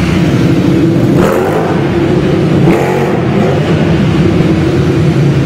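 Ducati motorcycle engines revving during stunt riding in a large concrete hall: a steady, loud engine note with two brief harder bursts of throttle, about a second and about three seconds in.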